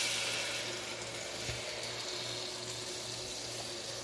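Chicken broth pouring from a pitcher into a hot multi-cooker pot onto sautéed vegetables, a steady splashing pour that is loudest in the first second and then settles.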